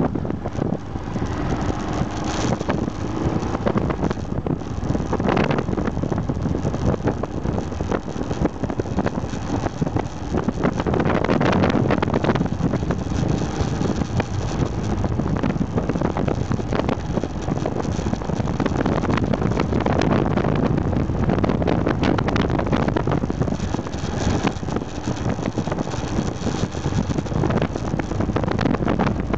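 Aprilia Pegaso 650 Strada motorcycle under way, its single-cylinder engine running with wind noise buffeting the microphone.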